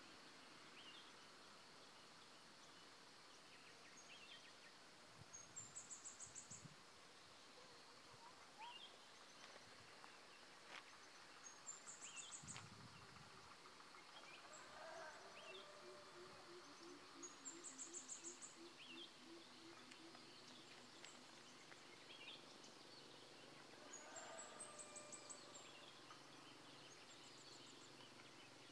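Faint rural ambience with birds calling: a short, high trill repeated four times, about every six seconds, among scattered short chirps, and a run of quick low notes near the middle.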